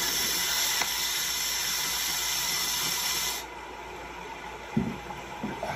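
A steady hissing noise that drops away abruptly about three and a half seconds in, leaving a quieter background with a couple of soft knocks near the end.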